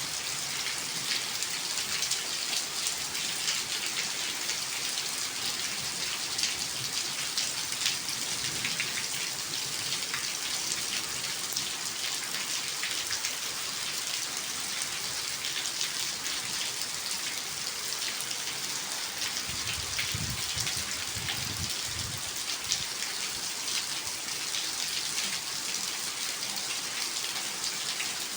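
Steady rain falling: a dense, even hiss of drops with many small individual drop clicks. About two-thirds of the way through, a low rumble comes in for a couple of seconds.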